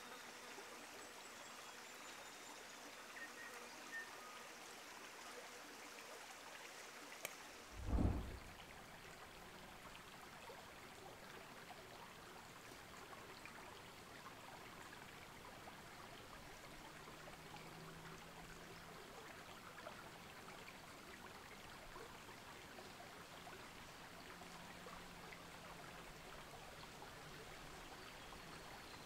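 Faint trickle of a shallow bush creek, steady throughout, with a single low thump about eight seconds in.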